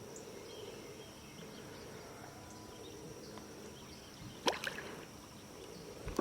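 Quiet riverside ambience: a steady high drone of summer insects over faint moving water, with a sharp click or knock about four and a half seconds in.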